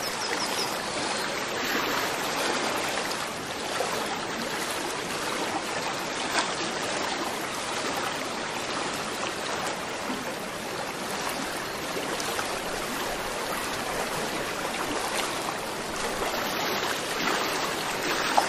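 Steady rushing and trickling of water in an aquarium, with small irregular splashes.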